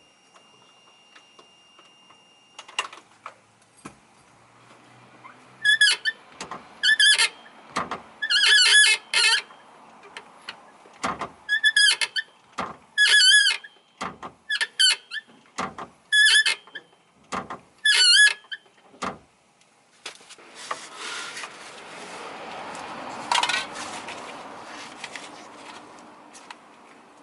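Clutch pedal of a manual Nissan 180SX being pressed over and over, each press giving a short, high 'kyu' squeak that bends in pitch, with light knocks between them. The squeak came from the clutch pedal bracket, whose stay was found broken. In the last third the squeaks stop and a steady rustling noise takes over.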